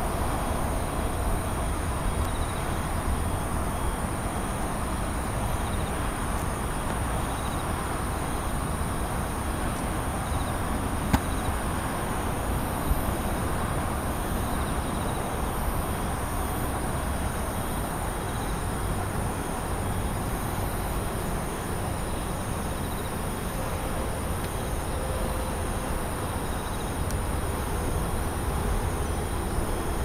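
Steady outdoor night ambience: a low rumble and hiss of distant city traffic, with insects chirping in a steady high drone and two brief ticks near the middle.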